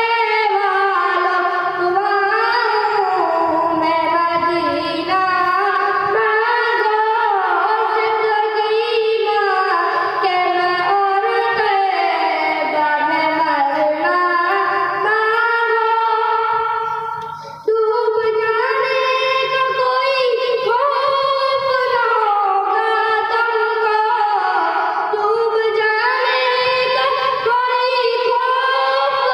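A boy singing a naat, a solo devotional song, into a microphone over a loudspeaker, in long, high, held and ornamented phrases, with a short break a little past halfway.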